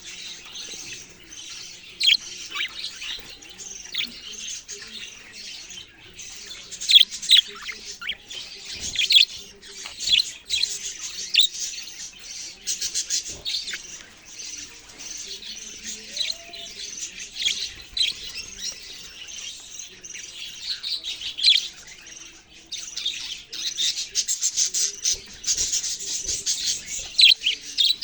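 Budgerigars chirping: a dense, unbroken stream of short high chirps and quick whistled sweeps, with louder bursts in the middle and near the end.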